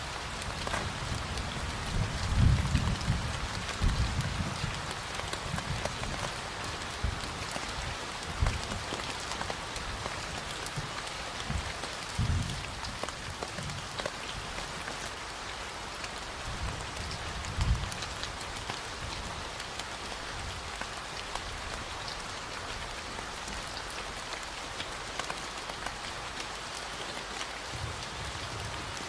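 Steady rain falling in fine, dense drops, with a few brief low rumbles in the first two-thirds.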